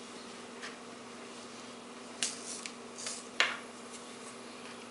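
Hands stripping cattail flower spikes over a plastic bowl and setting the bare stalk cores down: a few light clicks and short rustles, the sharpest about two and three and a half seconds in.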